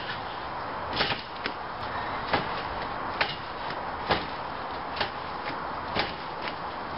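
Small, old, rusty garden trampoline being bounced on: a sharp snap from the mat and springs about once a second, with smaller clicks between, over a steady hiss.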